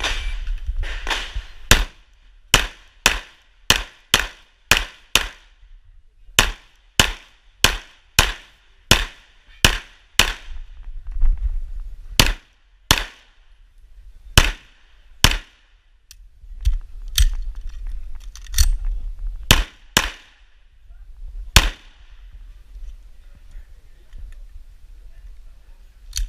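9mm Imbel MD1 GC pistol fired in fast strings, about 28 shots over some twenty seconds, many in quick pairs, with short pauses between groups. A short electronic beep sounds at the very start, and a low rumble runs underneath.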